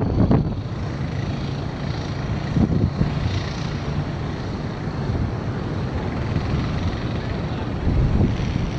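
Heavy storm surf and strong wind make a steady, continuous noise, with a vehicle engine running underneath, likely the beach quad ATV.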